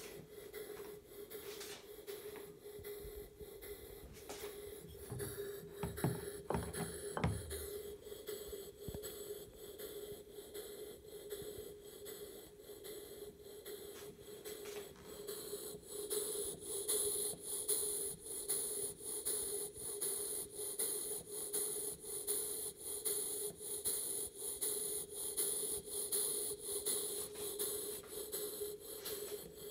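Cretors vertical oscillating model steam engine running slowly on low-pressure compressed air, puffing its exhaust in a steady rhythm through a copper-vase chuff enhancer, with a steady hiss of air. The hiss grows louder about halfway, and a few low bumps come a few seconds in.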